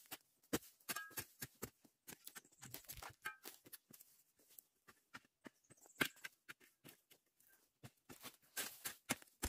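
Hand hoe scraping and knocking into ashy, burnt soil and charred debris: irregular scrapes and short knocks throughout, with a couple of brief high chirps about a second in and again near three seconds.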